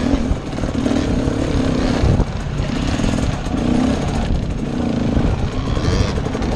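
Husqvarna TE250 dirt bike engine heard from the rider's helmet, revving up and falling back in short surges while crawling over rocks, with one loud knock about two seconds in.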